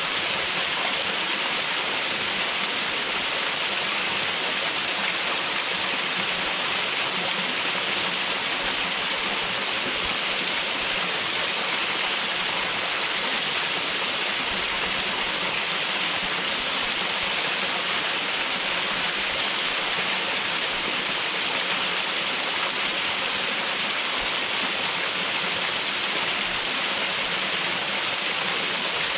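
Waterfall: water pouring steadily over the upper drop of the falls, a constant even rush with no breaks or changes.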